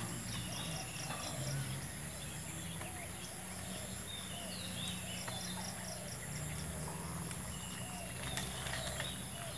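Outdoor insect chirping in a steady, evenly pulsed rhythm, with scattered short bird chirps over it and a low steady hum underneath.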